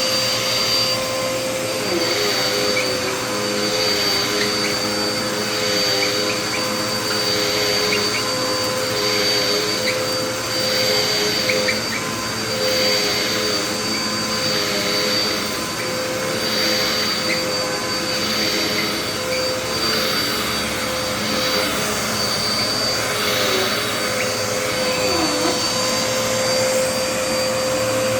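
Dirt Devil Endura Express upright vacuum cleaner running steadily, its motor giving a constant whine.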